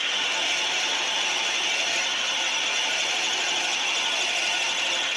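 Twist drill cutting into a bearing-bronze bushing turning in a 1911 Hendey lathe: a steady, high scraping noise of the cut over the running lathe.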